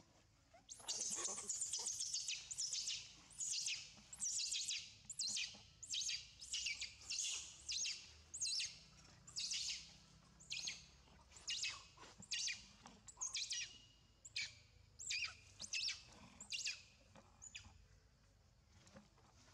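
A macaque screaming: one long high-pitched scream about a second in, then a run of shorter falling screams, a little over one a second, that stops near the end.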